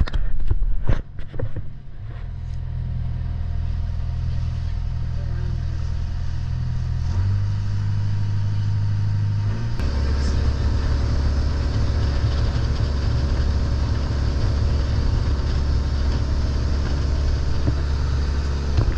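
A boat's engine running steadily under the deck, changing speed about seven seconds in and again near ten seconds, after which it runs lower and a little louder. A few knocks sound in the first two seconds.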